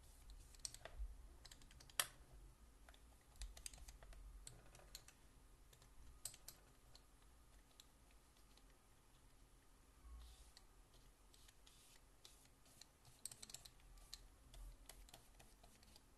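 Faint, scattered light clicks and soft scraping of a wide flat brush working over taped watercolour paper, one sharper click about two seconds in and a brief flurry near the end.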